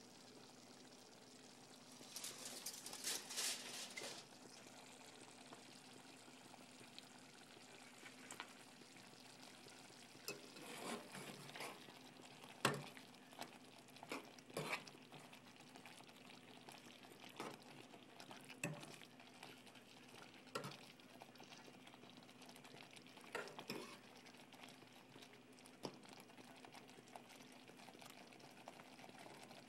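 A utensil stirring a pot of chicken wings in sauce, scraping and knocking against the pot in short bursts, loudest a couple of seconds in, over a faint steady hum.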